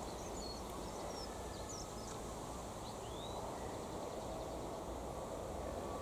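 Outdoor ambience: a steady low background rumble, with a few short, high bird chirps and whistles scattered through it.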